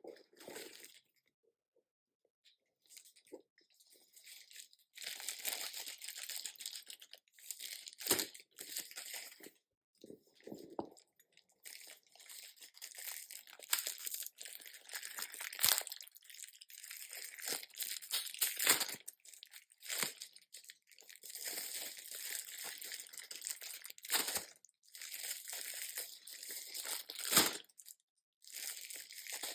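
Packaging crinkling and rustling in irregular bursts, with a few sharp knocks, as a new purse is unwrapped.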